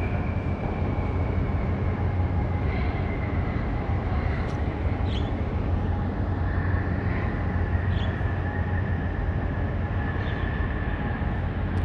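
Low, steady rumble of a large container ship passing close by, with a faint whine that slowly falls in pitch.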